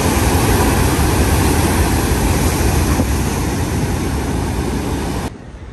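Heavy ocean surf breaking on rocks: a loud, steady roar that cuts off suddenly near the end.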